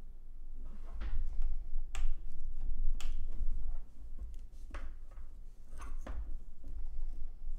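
Sleeved power-supply cables being handled and routed: rustling with several sharp clicks and knocks of plastic connectors, over a low rumble of handling noise as the hands and cables brush the microphone's furry windscreen.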